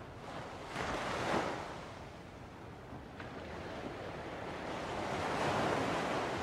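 Surf washing in: a steady rush of waves that swells up about a second in, eases, then builds to a longer swell near the end.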